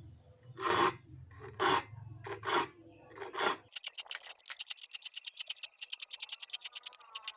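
Hand-tool work on a rusty hand saw's steel blade: four slow scraping or filing strokes about a second apart, then, after an abrupt cut, a fast, even run of short rasping clicks, about eight a second.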